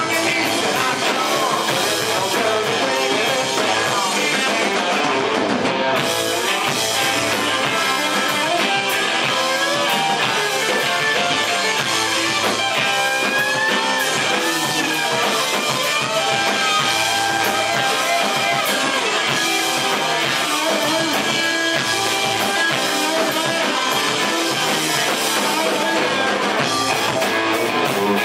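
Rock band playing live: electric guitars and a drum kit with a singer over them, steady and loud.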